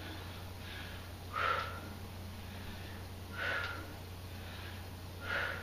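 A woman breathing out hard three times, about two seconds apart, once with each repetition of a dumbbell squat-and-row. A steady low hum runs underneath.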